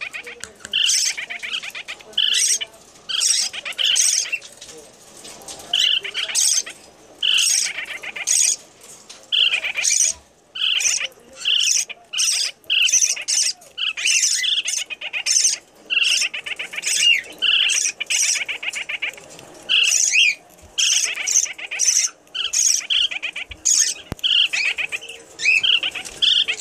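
Baby lineolated parakeet begging: short, buzzy chirping calls repeated about once a second, the food-begging calls of a young parakeet after a hand-feeding.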